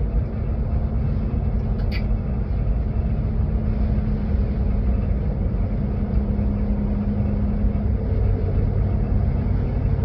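Steady road and tyre rumble inside an electric car's cabin while driving on the highway, with no engine note. A faint steady hum runs underneath, and there is one brief click about two seconds in.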